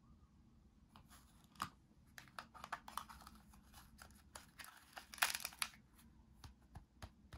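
Velcro-joined plastic toy vegetable halves handled and pressed together: scratchy velcro rasps, loudest about two-thirds of the way in, among light plastic clicks and taps.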